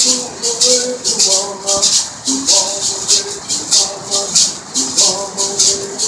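Kumeyaay bird song: men's voices singing a repeating melody in unison, over hand rattles shaken in a steady beat.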